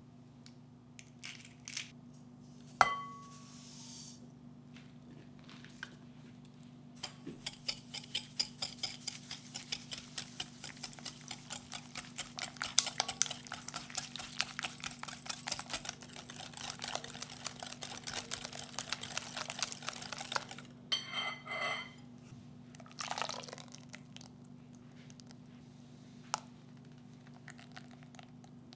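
Wire whisk beating eggs in a glass mixing bowl: a long run of rapid, even ticking as the wires strike the glass, stopping about two-thirds of the way through. A few scattered taps follow. A single sharp clink rings out about three seconds in.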